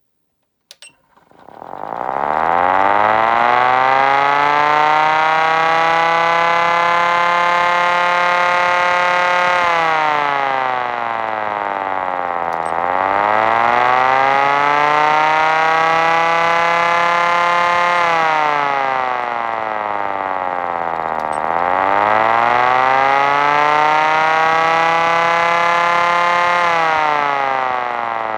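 A 3D-printed electric air raid siren winds up to a loud, steady wail. It then dips in pitch and winds back up twice, holding each steady tone for several seconds, and starts to fall again near the end. It is running below full power.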